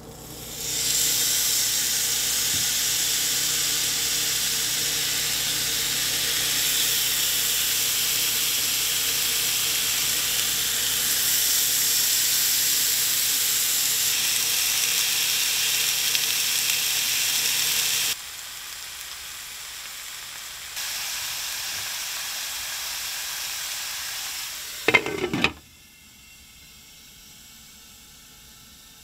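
Mahi fillets sizzling in a hot cast-iron skillet, a loud, steady frying hiss that starts about a second in as the fish hits the pan. The sizzle drops abruptly partway through and later returns more quietly. Near the end a glass pan lid clatters onto the skillet, after which the sizzle is muffled and faint.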